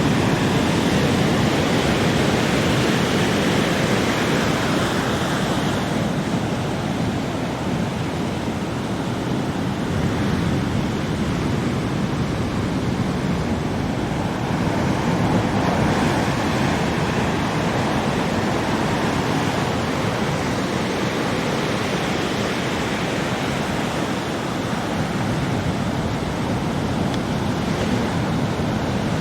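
Ocean waves breaking and washing on a beach, a continuous rushing surf that swells and eases every several seconds.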